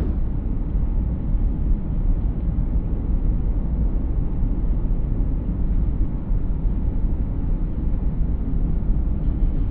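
Steady low road rumble from inside a moving vehicle, the engine and tyre noise of a ride along a paved road.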